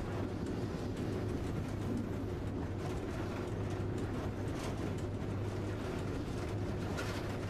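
Electric locomotive cab noise while running: a steady low hum and rumble of wheels on rail, with an oncoming train of tank wagons rolling past close alongside. A few sharp clicks of wheels over rail joints come about halfway through and near the end.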